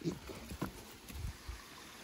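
A few dull, low thumps at irregular spacing, about four in all.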